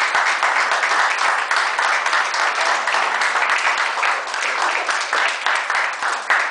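Audience applauding: a dense patter of many hands clapping, thinning near the end into fewer, separate claps.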